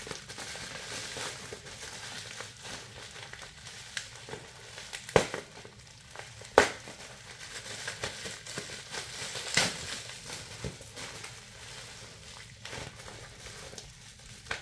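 Plastic packaging crinkling and rustling as it is opened by hand, with three sharp snaps scattered through it.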